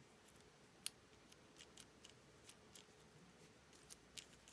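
Faint, scattered small clicks and ticks of a compact padlock's core and key being handled and fitted back into the lock body, with one sharper click about a second in.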